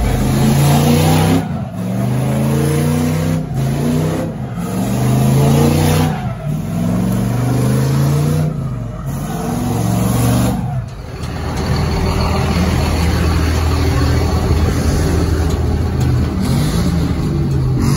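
Pickup truck engine revving hard during a burnout, its pitch climbing and dropping about six times, then held at a steady drone for the last several seconds.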